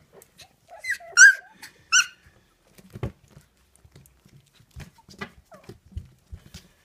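Young puppies eating dry kibble from a steel bowl: two high-pitched puppy yelps about one and two seconds in, the first the longer and loudest, then scattered small clicks and crunches as they chew and nose the kibble.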